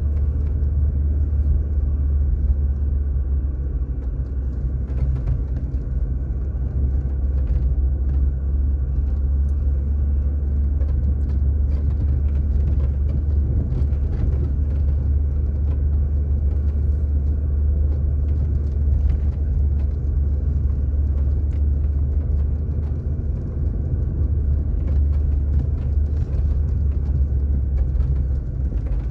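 Car driving at a steady speed: a continuous low rumble of engine and tyres on asphalt.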